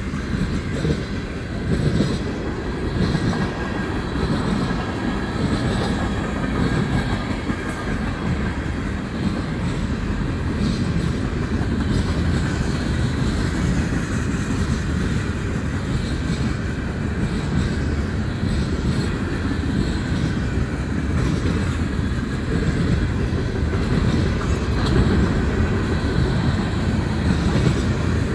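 Freight train cars rolling past close by: a steady low rumble of steel wheels on the rails, with occasional clacks as the wheels pass over the track.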